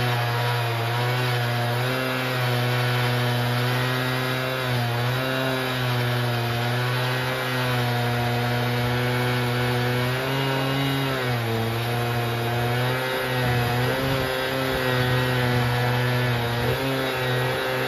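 Stihl MS880 two-stroke chainsaw ripping a slab through spalted yew on a Logosol F2 chainsaw mill, running at a steady high note that sags briefly a few times as the cut loads the engine.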